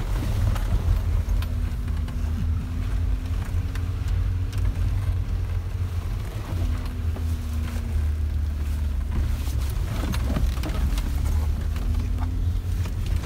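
Mercedes-Benz G-Class off-roader heard from inside the cabin while driving a dirt track: a steady low engine and drivetrain drone with a faint wavering hum above it. A cluster of knocks and rattles from bumps comes about ten seconds in.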